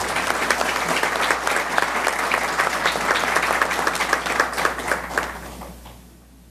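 A room full of people applauding, many hands clapping at once; the clapping fades out near the end.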